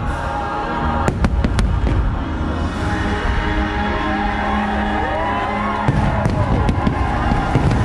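Fireworks bursting, with sharp bangs in a cluster about a second in and again near the end, over the show's music soundtrack played through loudspeakers and a low crowd murmur.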